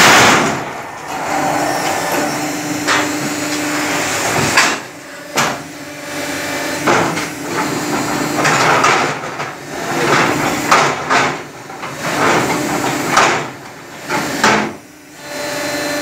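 Concrete block and paver making machine working through its cycle: a motor hum that comes and goes in stretches, with clanking and several sharp metal knocks as the mould and press head move.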